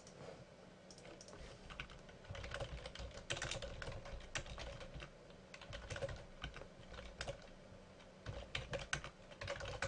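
Typing on a computer keyboard: a quick, irregular run of key clicks with a brief pause near the end.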